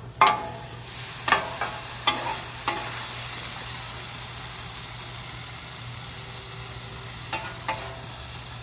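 Ground beef with taco seasoning sizzling on a hot steel flat-top griddle as water is poured onto it, a steady hiss through the middle. A metal spatula scrapes and taps against the griddle plate a few times in the first three seconds and twice more near the end.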